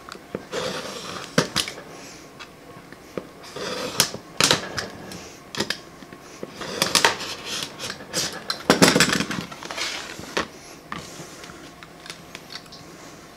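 Razor knife scoring a clear plastic face shield along a metal straight edge: a series of short scraping strokes with light clicks, a second or two apart.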